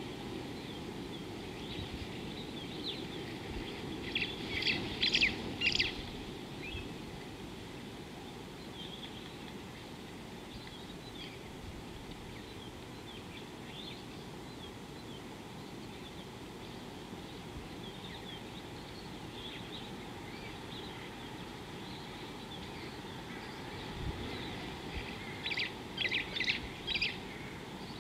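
Wild birds calling: a loud run of quick, sharp notes about five seconds in and again near the end, with scattered faint chirps between, over a steady low wind noise.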